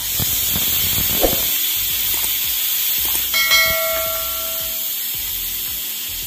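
Pressure cooker whistle: a loud, steady hiss of steam escaping, starting suddenly, with the dal cooking under pressure. A bell-like ding sounds about three seconds in, and there is a knife chop on a wooden board about a second in.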